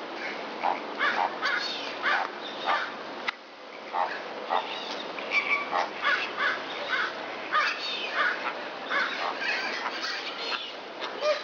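Repeated short, harsh animal calls, coming irregularly, with an abrupt break about three seconds in.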